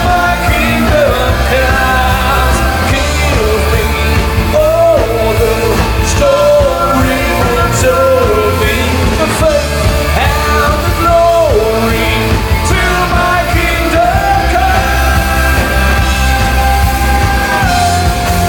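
Live rock band playing loudly, with a lead singer over electric guitar, drums and keyboard and a steady heavy bass.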